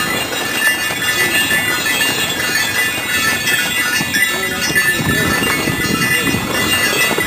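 Harness bells on a Percheron jingling steadily as she pulls a wagon, over the wagon's rumble and rattle on the snowy track.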